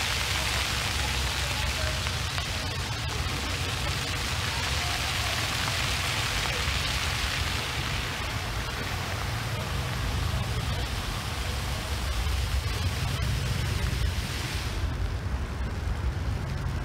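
Steady wind noise on the microphone: a low rumble under a broad hiss, with the hiss dropping away about fifteen seconds in.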